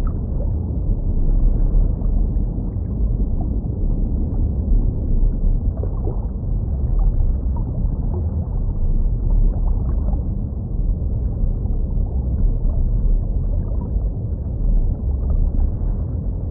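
Steady low, muffled underwater rumble of aquarium water, with faint scattered bubbling ticks.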